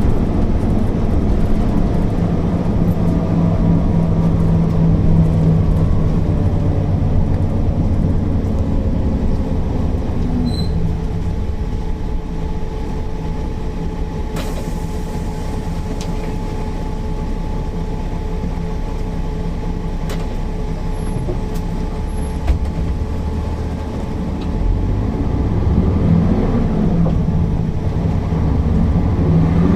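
Mercedes-Benz O408 city bus's diesel engine running under way: the pitch falls over the first few seconds, runs fairly steady in the middle, and rises again near the end as the bus picks up speed.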